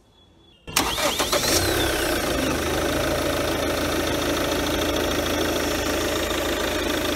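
Chevrolet Captiva's 2.0-litre VM Motori VCDi common-rail turbo-diesel inline-four starting: it cranks briefly and catches under a second in, runs rougher and louder for about a second, then settles into a steady diesel idle.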